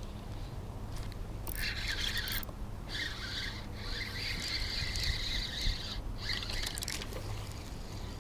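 Spinning fishing reel being cranked in several short runs, a whirring that starts and stops with brief pauses, over a steady low rumble.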